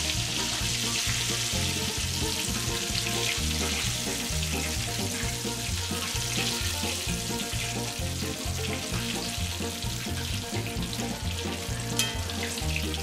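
Chicken wings frying in hot oil in a skillet: a steady sizzle and crackle as the pieces are lifted out with tongs, over background music.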